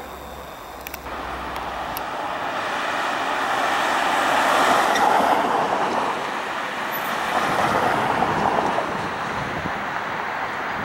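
Vehicle noise passing by: a rush of noise that swells to a peak about five seconds in, dips, then swells again near eight seconds.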